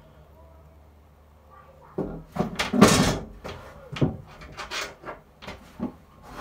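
A faint low hum, then from about two seconds in a run of irregular knocks and thumps on a hard cabinet, the loudest about three seconds in.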